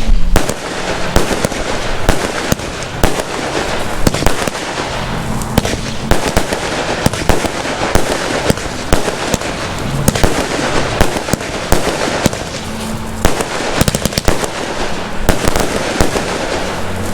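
Fireworks going off in quick succession, a dense run of sharp cracks and bangs.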